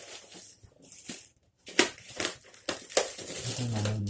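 Parcel packaging being opened by hand: wrapping crinkling and tearing, with two sharp snaps about two and three seconds in.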